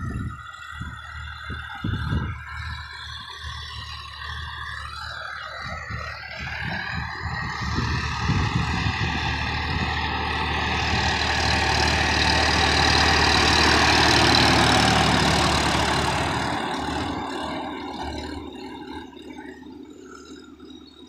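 Sonalika DI-50 RX tractor engine running as it pulls a tillage implement through dry soil. It grows louder as the tractor passes close by in the middle, then fades as it drives away near the end.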